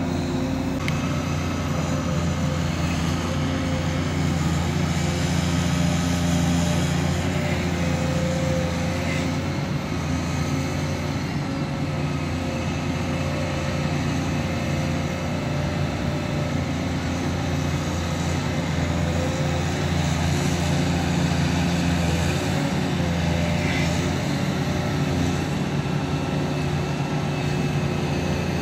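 Volvo EC210CL tracked excavator's diesel engine running steadily under working load, with its hydraulics, as the tiltrotator bucket strips turf.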